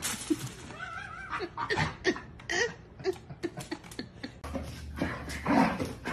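Dog and cat at a shared food bowl: short animal sounds and clicks of eating, mixed with a person's laughter.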